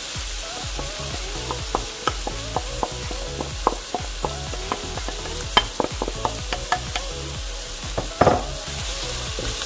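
Onion and garlic sizzling in hot olive oil in a frying pan, with frequent sharp clicks and scrapes of a utensil stirring against the pan and one louder knock near the end.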